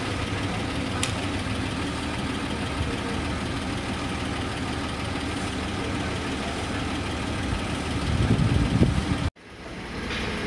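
Engine of a Sumitomo crawler-mounted drilling rig running steadily. It grows louder and rougher for about a second near the end, then cuts off abruptly.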